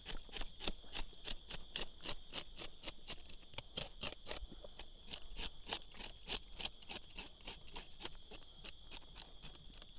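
A fish being scaled: quick scraping strokes against the scales, about four a second, keeping an even rhythm. A steady high-pitched tone runs underneath.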